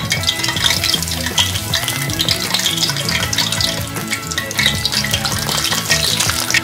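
Breaded potato-cheese balls deep-frying in a pan of hot oil, the oil bubbling and crackling steadily around them as more are lowered in with a slotted spoon.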